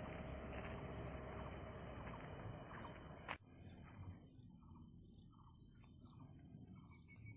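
Faint outdoor ambience: a steady high-pitched insect drone under wind noise on the microphone. The wind noise stops with a sharp click about three and a half seconds in, leaving the drone and a short chirp repeated about twice a second.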